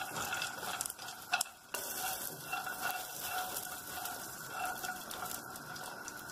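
Cashews and ginger stir-frying in oil in a nonstick pan, sizzling while a silicone spatula scrapes and turns them. There are a few light clicks, and the sound drops out briefly about one and a half seconds in.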